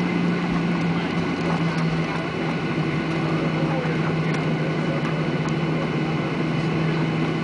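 Jet airliner cabin noise as the plane rolls along the runway after landing: the engines and airflow make a steady noise with a low hum, heard from inside the passenger cabin.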